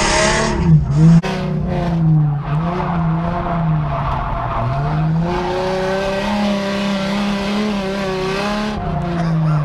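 Drift car's engine heard from inside the cabin, its pitch rising and falling several times as the throttle is worked through a slide, with tire squeal as the car goes sideways.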